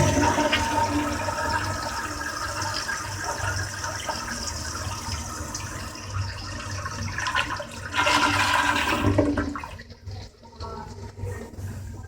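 1986 Crane Whirlton toilet flushed by its flushometer valve: a sudden rush of water that runs steadily, swells again for a moment about eight seconds in, then dies away about ten seconds in.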